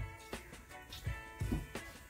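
Background music with held notes over a beat of low drum thumps.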